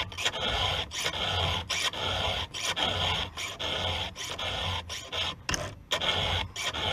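Round file rasping across a chainsaw chain's cutter teeth by hand, in steady strokes about one every three-quarters of a second: the chain being sharpened.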